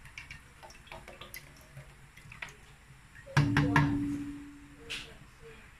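Cooking oil poured from a plastic bottle into a frying pan, with small clicks and crinkles from the bottle. About three and a half seconds in comes a loud knock, followed by a short ringing hum that fades over about a second.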